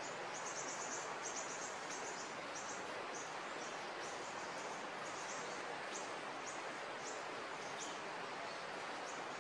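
Forest ambience: a steady hiss with short high-pitched chirps from small creatures, repeating irregularly about one or two a second.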